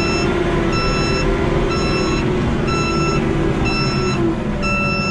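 Reverse backup alarm beeping about once a second, a steady pitched beep over the low sound of a running engine.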